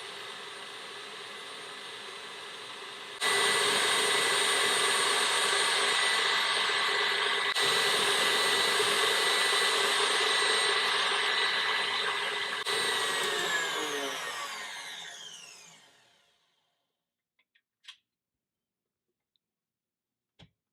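KitchenAid stand mixer motor running with the wire whip beating heavy cream: a steady whine that gets louder about three seconds in. Near the end the mixer is switched off and the whine falls in pitch as the whip spins down to a stop, followed by a couple of faint clicks.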